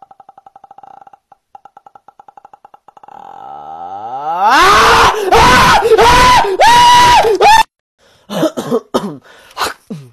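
Faint rapid pulsing gives way to a rising yell that breaks into several very loud, distorted screams. The screaming cuts off suddenly, then a few short falling shouts follow.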